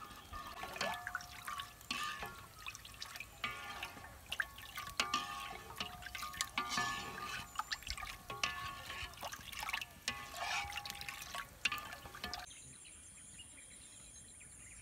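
Buffalo milk bubbling in an iron wok, with a metal ladle clicking and scraping against the pan as it is stirred, under light background music. About three-quarters of the way through this stops, leaving a quiet outdoor background with a steady high-pitched hiss.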